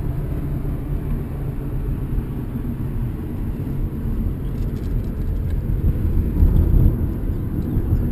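Road and engine noise inside a moving car's cabin: a steady low rumble that grows a little louder about six seconds in.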